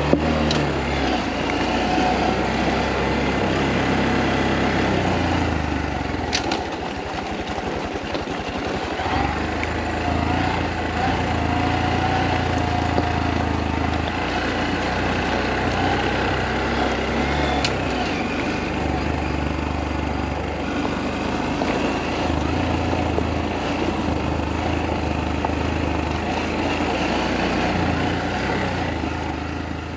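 Honda Monkey 125's single-cylinder four-stroke engine running under way down a gravel road, its note changing with the throttle and dropping away briefly about seven seconds in before picking up again. Two sharp clicks stand out: stones flicked up from under the tyres.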